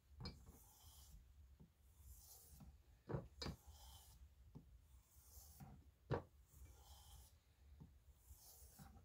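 Knife blade being stropped on a wood-backed leather strop loaded with 4-micron compound, the final edge-finishing stage after sharpening: faint soft swishes about every second and a half, with a few light knocks.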